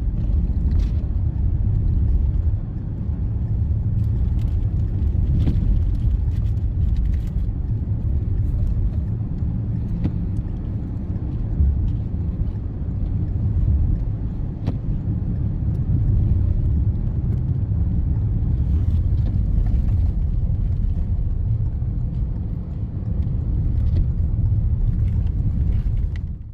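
Strong blizzard wind buffeting the microphone: a steady, loud low rumble that carries on unbroken.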